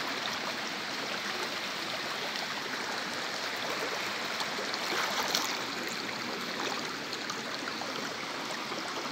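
Shallow forest stream flowing steadily, a continuous babble of running water.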